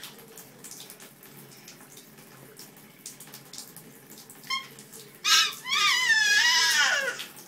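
Water running into a bathtub as a steady hiss, with a baby's high-pitched squeal: a brief squeak about four and a half seconds in, then a long, loud, wavering squeal that falls in pitch at the end.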